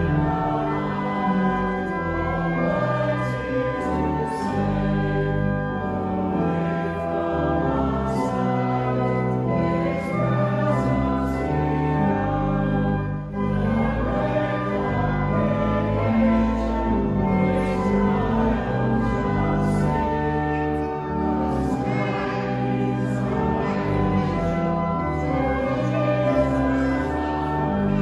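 A hymn sung by voices with organ accompaniment, held notes moving from chord to chord, with a short break about thirteen seconds in.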